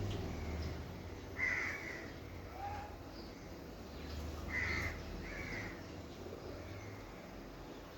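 A bird calling three times: once about a second and a half in, then twice close together near the middle.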